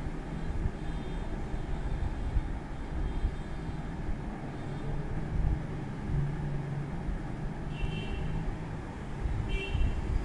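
Steady low rumble of background noise, with two brief high-pitched tones near the end.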